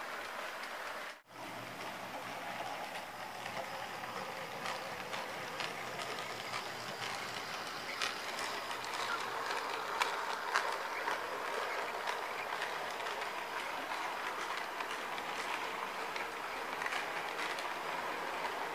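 HO scale model train rolling past, a steady rolling hiss with irregular light clicks of the wheels on the track. The sound drops out briefly about a second in.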